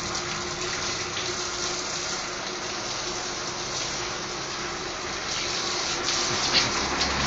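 Water running steadily from a garden hose, splashing on the dog during a bath.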